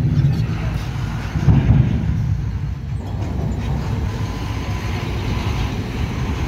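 Large road vehicle's engine running, a steady low rumble that swells briefly about a second and a half in.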